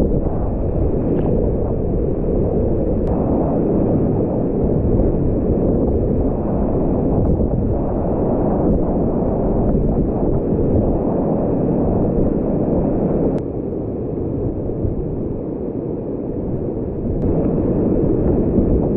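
Whitewater rapids rushing and churning loudly around a kayak, heard muffled through a GoPro's waterproof housing. The roar drops somewhat about two-thirds of the way through, then comes back up near the end.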